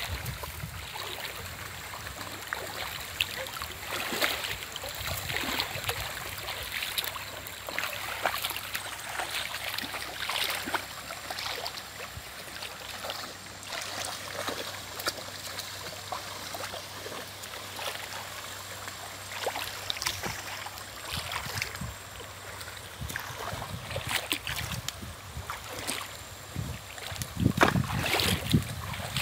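Shallow river water splashing and trickling as people wade through it and jab sticks into it, with many small irregular splashes.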